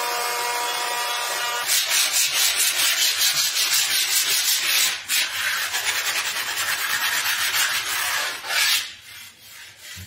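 An electric plunge router runs with a steady whine for the first second and a half or so. Then sandpaper is rubbed by hand along the routed edge of a round wooden board in quick back-and-forth strokes, about three a second, dying away near the end.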